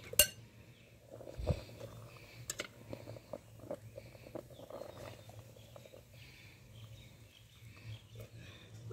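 Scattered clicks and knocks of a fork, a bowl and a metal pot lid being handled while boiled tripe is lifted out of the pot, with a sharp click just after the start and a dull knock about a second and a half in.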